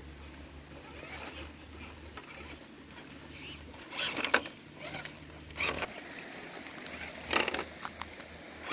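A few short rustling crunches in dry leaves and twigs, over a faint low steady hum.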